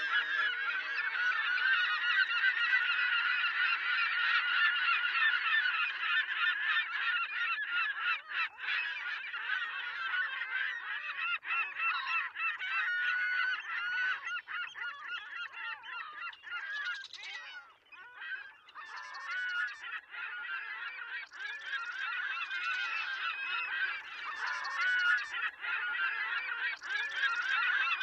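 A large flock of geese calling, many overlapping honks at once, thinning briefly about two-thirds of the way through.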